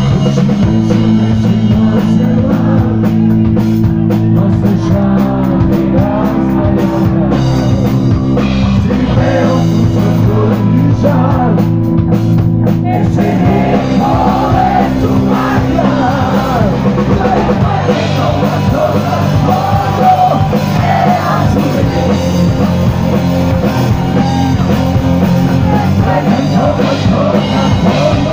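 Live rock band playing: electric guitar, bass guitar and drum kit, with a man singing into the microphone; the singing is most prominent in the second half.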